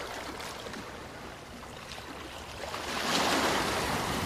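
Sea surf washing against a rocky shore, with a louder surge of surf about three seconds in.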